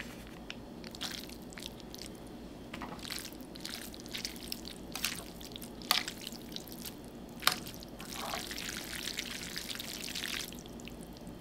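Sauce being squeezed and spooned from packets onto ramen noodles, then the saucy noodles mixed with chopsticks in a ceramic bowl: wet squishing with several sharp clicks of the utensils against the bowl, and a busier stretch of mixing near the end.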